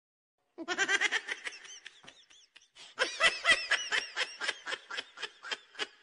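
Laughter in quick, chopped bursts of giggling, coming in two runs: it starts just over half a second in, fades around two and a half seconds in, and picks up again at about three seconds.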